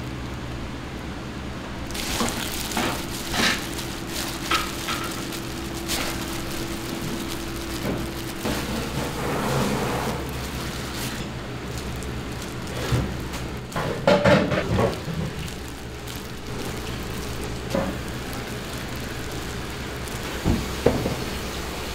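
Seasoned wild greens being squeezed and rubbed by gloved hands in a bowl, a wet squelching and rustling, with scattered kitchen clatter and knocks over a steady low hum.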